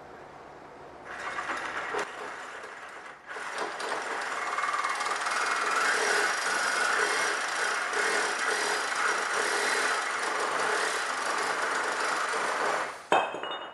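A Sawzall reciprocating saw cutting through a welded joint in a steel frame, with the harsh rasp of the blade on metal. It makes a short run, pauses briefly, then runs steadily for about ten seconds and stops abruptly with a click near the end.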